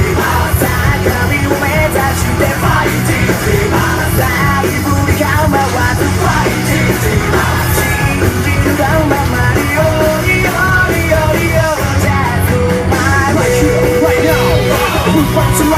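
Rock band playing loudly with a singer's voice over it, continuous and unbroken.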